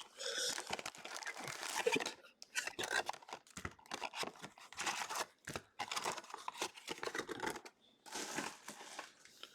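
Plastic wrapping on a trading-card booster box and packs being torn open and crumpled, in irregular crinkling rips with short pauses.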